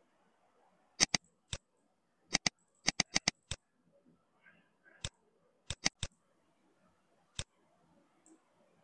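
Computer mouse button clicking, about fifteen sharp clicks in irregular groups, some in quick pairs and one rapid run of four.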